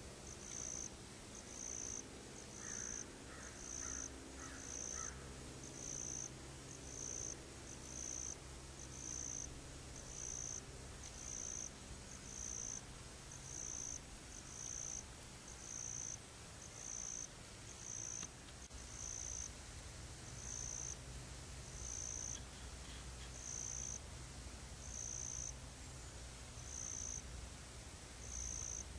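An insect calling in a steady rhythm of short, high-pitched pulses, a little more than one a second, over a low steady hum.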